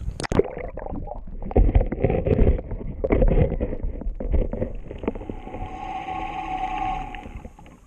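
Knocks and clatter of gear being handled in a small boat, with wind buffeting the microphone. Near the end a steady whine runs for about two seconds, then fades out.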